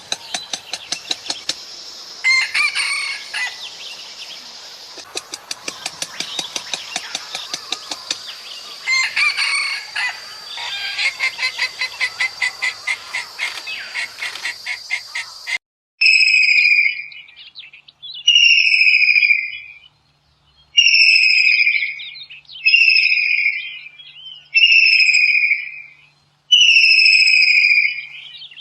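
Birds calling: first a busy stretch of rapid, high chirps and chattering notes, then, after a sudden cut about halfway through, one bird giving loud, clear calls about every two seconds, each a second or so long and falling slightly in pitch.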